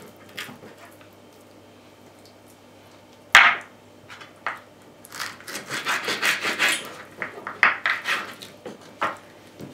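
Kitchen handling noise from moving raw pork ribs: one sharp knock just over three seconds in, then a few seconds of irregular scraping and rubbing.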